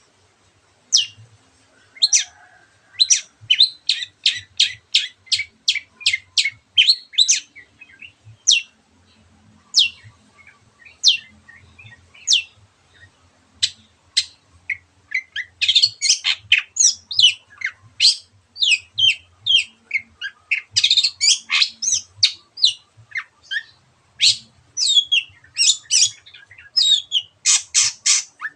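Long-tailed shrike (cendet) singing a long run of sharp, high, falling notes, about two a second at first. From about halfway the song quickens into a denser string of varied, rougher notes.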